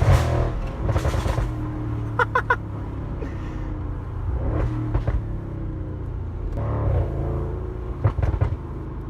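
Audi RS6 with a Milltek sport exhaust, its engine revved and idling. A quick volley of sharp exhaust cracks comes a little over two seconds in, and more come near the end.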